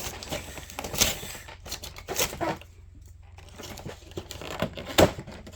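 Cardboard trading card collection box being torn open by hand: scratchy tearing and crinkling, with a sharp snap about a second in and a louder one near the end.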